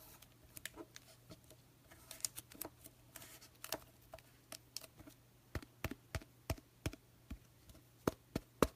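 Trading cards and plastic card holders being handled on a table: scattered light clicks and taps, more frequent in the second half.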